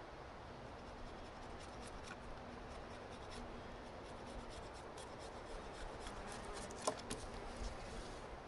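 Knife blade shaving and scraping along a wooden rabbit stick: a run of light scraping strokes as thin wood is carved off, with a sharper click about seven seconds in.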